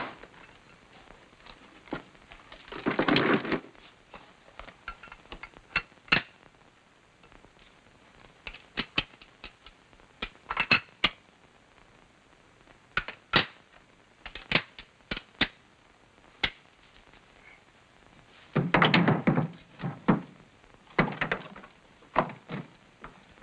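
Handling noise: a rifle's metal parts clicking and knocking amid the rustle of a blanket bundle being gone through. There are scattered sharp clicks throughout, and two longer bursts of rustling, one about three seconds in and one about nineteen seconds in.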